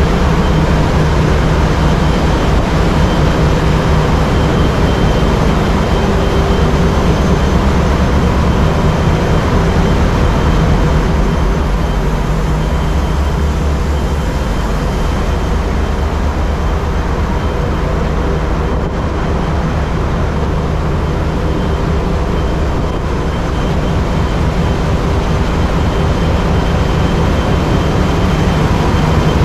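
Cruise ship engine room: MaK VM43C V-12 medium-speed diesel main engines running, a loud, steady mechanical din with a fine rapid pulse, several steady hums and a faint high whine.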